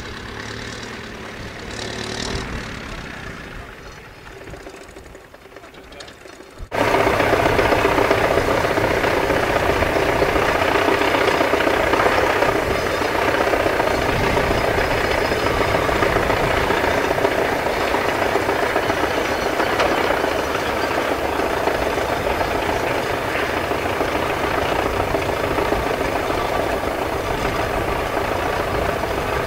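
The exposed engine of a stripped-down Foden OG lorry chassis running. It is fairly quiet at first, then much louder and steady from about seven seconds in.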